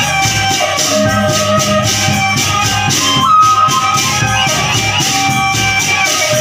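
Lombok gendang beleq ensemble playing: a bamboo suling flute carries a held, wavering melody over steady drumming and rapid jangling small cymbals.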